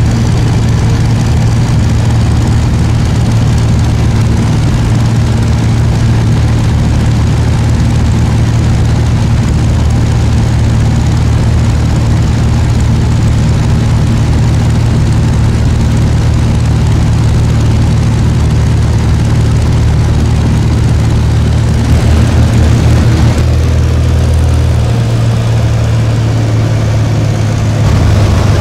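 Cessna 172's piston engine and propeller droning steadily in cruise flight. The low tone shifts slightly a little over twenty seconds in.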